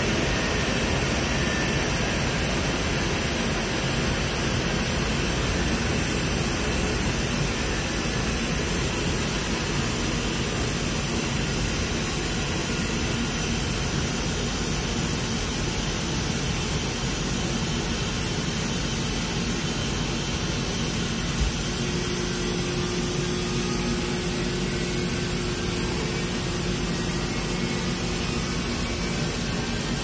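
B&C industrial 300 lb-load washer-extractor in its high-speed final spin: the belt-driven drum, pulley and motor run with a steady, loud whir and rush. A single light knock comes about two-thirds of the way through.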